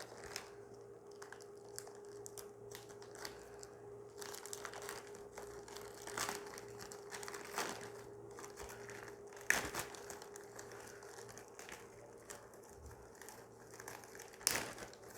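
Packaging handled by hand: intermittent crinkling and rustling with scattered short taps and clicks, the two sharpest about nine and fourteen seconds in, over a faint steady hum.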